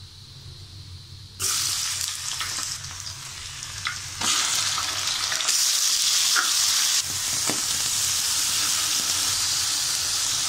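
Hot oil in a wok sizzling as food is stir-fried, with a metal spatula scraping and clicking against the pan. The sizzle starts suddenly about a second and a half in and grows louder around four seconds in.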